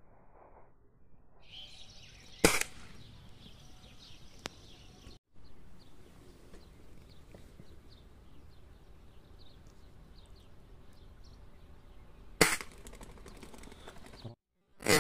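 Gunshots from dove hunting: three sharp single shots, about two and a half seconds in, again about ten seconds later, and a third just as it ends, over a faint outdoor background.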